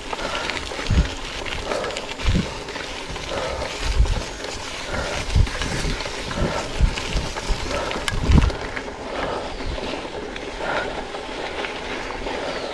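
Mountain bike riding over a dirt forest trail, heard from the rider's own bike: a steady rumble and rattle of tyres and frame, with irregular low thumps every second or two.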